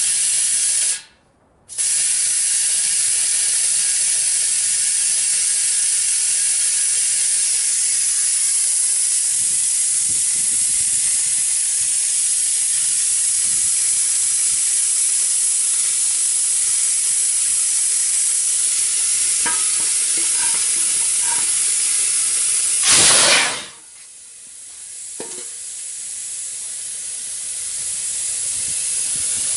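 Compressed air hissing loudly and steadily while a truck tire with an unseated bead is aired up, with a short break about a second in. Near the end comes a brief, louder blast of air, then a quieter hiss that slowly grows louder.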